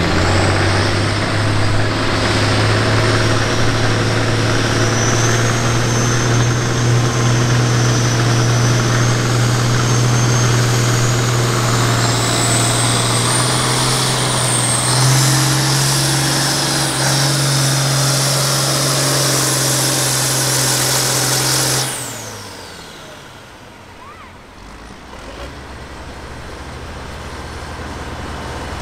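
Farm stock diesel pulling tractor running at full throttle under the load of a pull, with a steady deep drone and a high whine that climbs in pitch. About three-quarters of the way through, the engine is abruptly throttled back at the end of the pull and the sound falls away, then slowly builds again.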